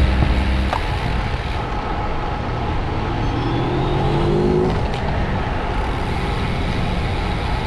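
Road traffic noise: a steady rush of passing vehicles, with one motor vehicle's engine rising in pitch from about three seconds in.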